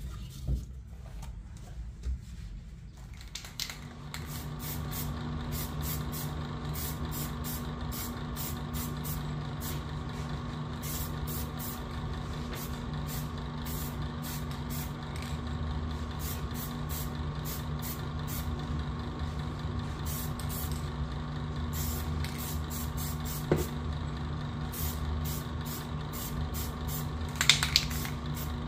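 Aerosol spray can of clear varnish hissing in many short bursts over a steady low hum.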